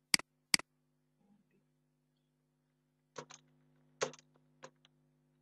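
Computer mouse and keyboard clicks: two sharp clicks just after the start, then a handful of keystrokes between about three and four and a half seconds in as a search term is typed. A faint steady hum lies underneath.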